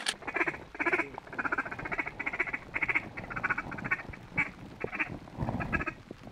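Rapid runs of mallard-type quacks and chatter, short calls repeated in quick clumps.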